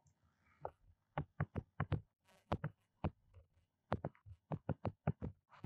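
Plastic stylus tip tapping and clicking on a tablet screen during handwriting, an irregular run of short taps, several a second.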